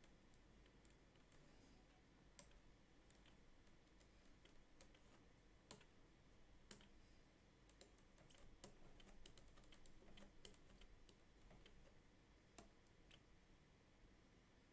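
Near silence with faint, irregular clicks and taps from computer input while drawing on screen.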